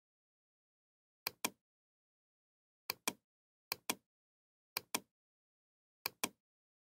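Computer mouse button clicks: five press-and-release pairs, each a quick double tick, spaced irregularly over a few seconds with silence between.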